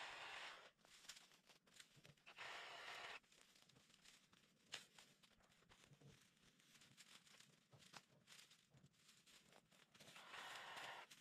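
Faint rustling and crackling of dry brush and dead leaves being pulled and gathered by hand, in three short bursts (at the start, about two seconds in, and near the end) with scattered small snaps in between.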